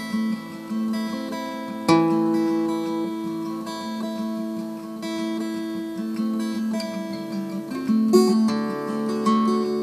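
Acoustic guitar music: plucked and strummed chords ringing on, with a strong struck chord about two seconds in and another near eight seconds.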